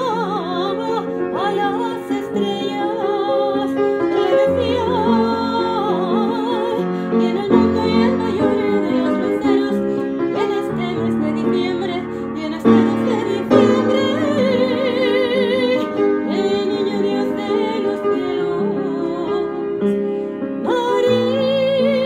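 Piano playing chords while a woman sings in operatic style with a wide vibrato, in phrases with short breaks between them.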